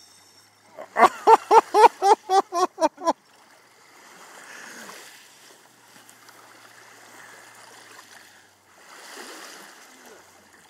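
A short burst of laughter, about eight quick voiced pulses in two seconds, starting about a second in. After it, only a faint rushing of water at the shoreline.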